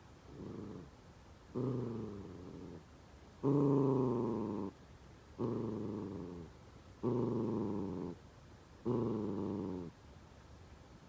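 Senior miniature dachshund growling in frustration while trying to get a treat out of a Kong toy: a short faint growl, then five drawn-out growls of about a second each, each sliding down in pitch.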